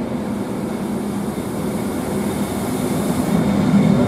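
Double-deck coaches and an ÖBB class 1144 electric locomotive rolling past a platform: a steady rumble of wheels on rail with a low steady hum, growing louder as the locomotive draws level.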